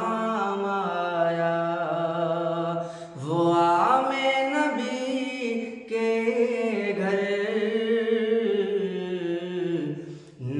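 Unaccompanied male vocals singing a naat in long held, bending notes. The singing runs in three phrases, broken by short pauses about three and six seconds in.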